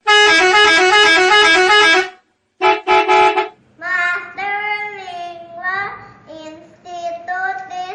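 Indonesian 'telolet' multi-tone bus horn playing a quick tune that flips between two pitches for about two seconds, then a second shorter blast. From about four seconds in, voices are singing.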